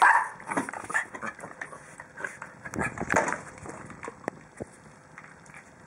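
Small dog barking: a loud bark right at the start and another burst of barking about three seconds in, with scattered short knocks and scuffles between that fade out near the end.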